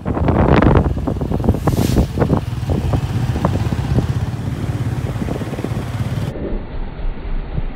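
Motorcycle running on the move, with wind buffeting the microphone.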